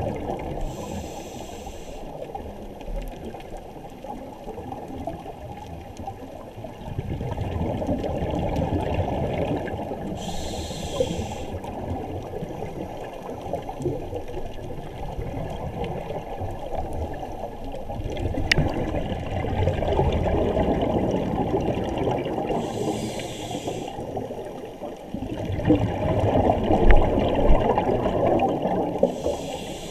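Scuba diver breathing through a regulator underwater: a short hissing inhale, then a few seconds later a longer gurgling rush of exhaled bubbles, repeated as three or four slow breaths.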